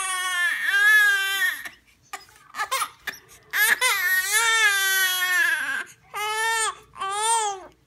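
Newborn baby crying in high-pitched wails: a cry of nearly two seconds, a brief whimper, a longer wail of about two seconds, then two short cries near the end.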